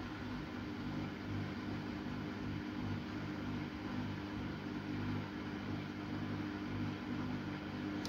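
Samsung Eco Bubble front-loading washing machine's drain pump running with a steady low hum, pumping out the wash water before the first spin.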